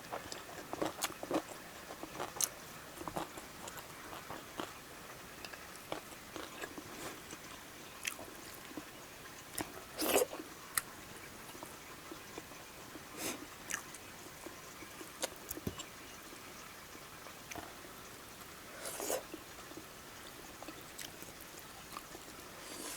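A person eating close to the microphone: chewing and biting with scattered soft mouth clicks, and a few louder bites or slurps.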